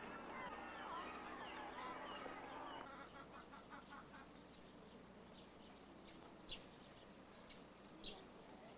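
A flock of poultry calling together, many overlapping honks and calls, dying away about three seconds in. After that it is quieter, with a few short high chirps.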